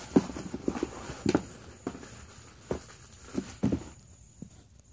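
Irregular knocks, taps and rustling from small objects handled close to the microphone, with the loudest knocks near the start and about a second in. The sounds thin out in the last second.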